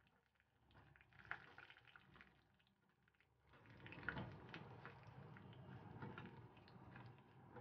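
Faint sizzling and crackling of a tempering, mustard seeds, fenugreek, curry leaves and chillies frying in hot coconut oil in a small steel pan, with a few light clicks of the spoon stirring. Near silent at first, the sizzle becomes audible about three and a half seconds in.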